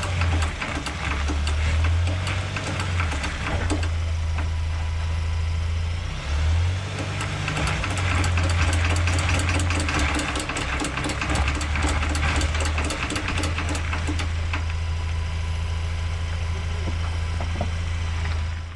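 Ford Ranger drivetrain running under acceleration in four-wheel drive, with a rapid, rhythmic clicking knock from underneath over the engine's steady hum. The clicking is densest in the middle stretch. It is the sign of loose bolts in the driveline and only occurs when accelerating and turning in 4x4.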